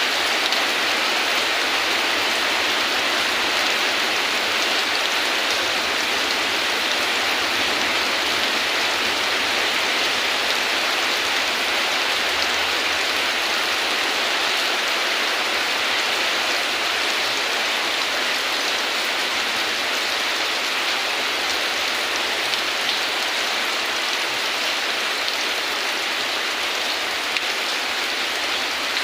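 Steady heavy rain falling, an even hiss with no thunder.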